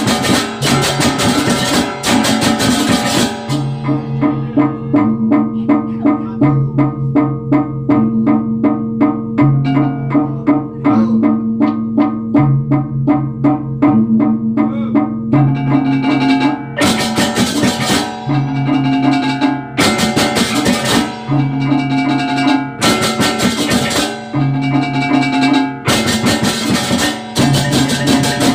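Balinese baleganjur gamelan playing: loud full-ensemble passages with drums, gongs and metal percussion. About three seconds in it drops to a quieter stretch of fast, even mallet strokes over alternating low gong tones. About sixteen seconds in, the loud full-ensemble passages return in repeated surges.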